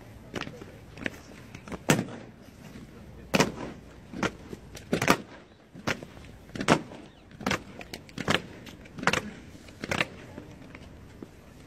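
Honour guard soldiers' boots stamping on stone steps in a slow ceremonial march, a sharp stamp about every 0.8 seconds, stopping shortly before the end.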